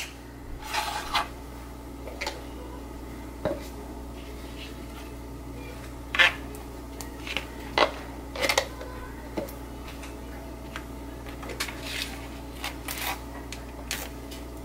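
Table knife scraping Miracle Whip out of its jar and spreading it on burger buns: scattered short scrapes and clicks, over a low steady hum.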